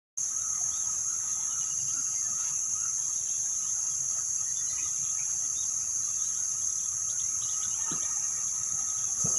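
Insects keeping up a steady, high-pitched drone, with scattered short bird chirps over it.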